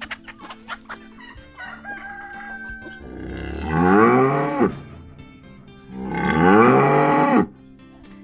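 A rooster crowing twice, each crow about a second and a half long and rising then falling in pitch, over soft background music, with a few short clucks in the first second.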